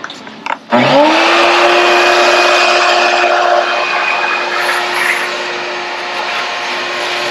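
Wet/dry shop vacuum switched on with a click, its motor spinning up in a quick rising whine to a steady pitch, then running with a loud rush of air through the hose.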